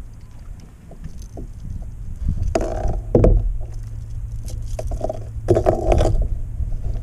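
Rustling and knocking as seaweed is pulled off a freshly caught fish and the fish is handled on a kayak, louder twice: about two and a half seconds in and again about five and a half seconds in. A steady low rumble of wind on the microphone runs underneath.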